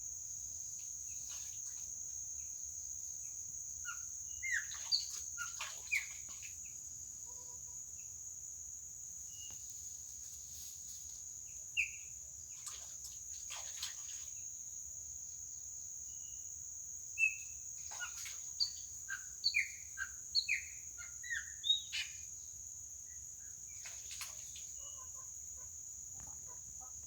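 A wild songbird calling in short whistled and chirping notes, in two bursts: one a few seconds in and a longer one after the middle. Behind it runs a steady high-pitched insect drone.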